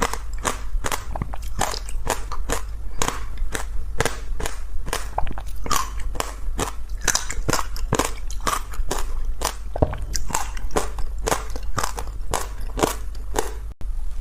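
Hard ice being bitten and chewed close to the microphone: rapid, crisp crunches, about three or four a second.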